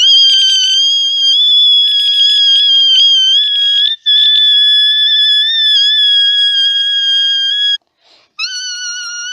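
Loud, high-pitched squeal that slides up at the start and then holds a nearly steady pitch with slight wavering. It breaks off briefly about four seconds in, stops near the end, and starts again.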